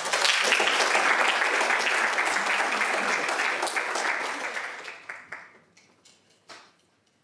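Audience applauding, dense clapping that fades out after about five seconds, with a few last scattered claps near the end.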